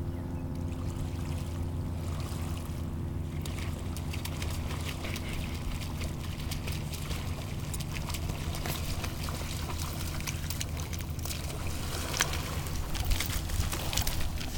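Dog splashing through shallow sea water as it swims and wades to shore, short splashes growing denser and louder in the last few seconds, over a steady low drone.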